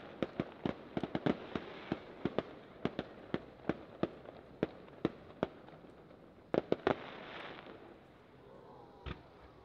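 Fireworks shells bursting: a rapid, irregular run of sharp bangs, then about seven seconds in a close cluster of bangs followed by a short crackling hiss, and one low thump near the end.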